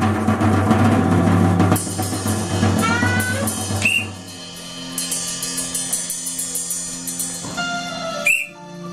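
Music with drumming: a full, dense drum beat with sustained tones that drops to a quieter passage about four seconds in, with a light, regular ticking beat and short whistle-like chirps.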